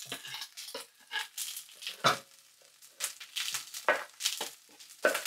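Chef's knife scraping minced garlic off a wooden cutting board into a frying pan of sliced onions: a string of short scrapes and taps over a faint sizzle from the pan.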